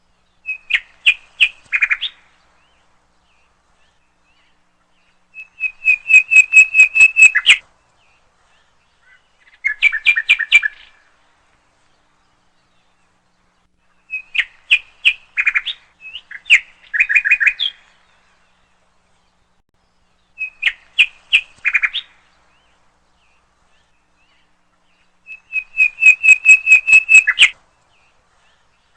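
A songbird singing: seven short phrases of rapid chirps, each a second or two long, repeated every few seconds with silence between.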